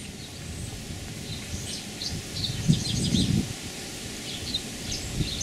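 Outdoor ambience with small birds chirping in short high calls, scattered through, and a brief low rustle about halfway through.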